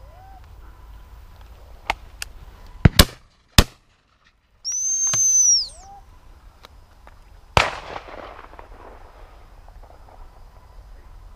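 Shotgun shots at flushed partridges. A quick group of sharp reports comes about three seconds in, and another loud shot with a long rolling echo follows about seven and a half seconds in. Between them a high, steady whistle is held for about a second.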